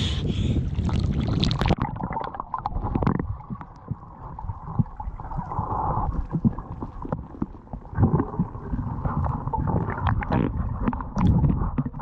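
Water sloshing at the surface, then, about two seconds in, the muffled underwater sound of a GoPro going under: a low rumble with gurgling bubbles and scattered clicks as a snorkeler swims below the surface.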